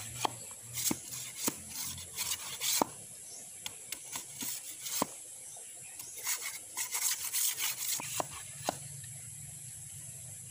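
Bolo knife blade scraping along a thin bamboo strip to clean it, in irregular strokes with sharp clicks of the blade on the bamboo; the scraping stops about nine seconds in.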